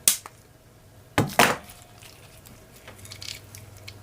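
A sharp metallic click as the C-clip is worked onto the Craftsman 1/2-inch drive ratchet head, then, a little over a second later, two heavier knocks in quick succession.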